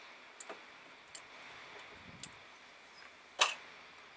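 Light metal clicks and taps from a nut being fitted onto a relay's mounting stud and a socket wrench being set on it, with one sharper click about three and a half seconds in.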